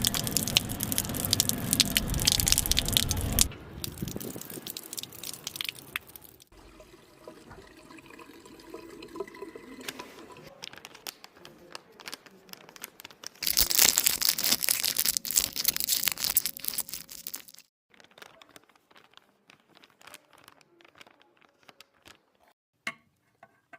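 Foley sound effects: loud crackling, crinkling noise for about three seconds, then quieter rustles and clicks, a second loud crackling stretch of about four seconds midway, and scattered light clicks near the end.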